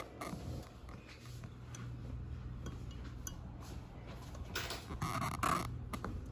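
A hand moving a chicken egg about in water in a glass measuring cup: soft water swishing with light knocks against the glass, loudest about five seconds in, over a steady low hum.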